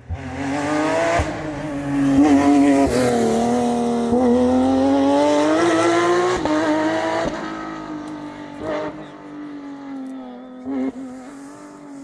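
Rally car engine at full stage speed coming up the road, passing and heading away. Its note dips, then climbs, breaks off briefly twice as it changes gear, and fades over the last few seconds, with a few sharp cracks along the way.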